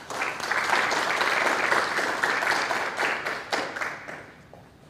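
A small audience applauding, dying away about four seconds in.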